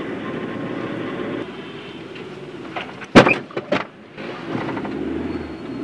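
Steady car-cabin road noise while driving. About three seconds in comes a sudden loud bang followed by a couple of smaller knocks: a motorbike hitting the car.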